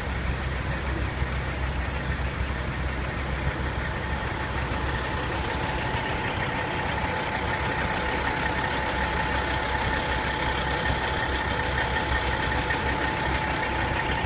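Diesel engines of semi trucks running as they roll slowly past in a line, a steady low rumble with a faint steady whine above it that grows clearer in the second half.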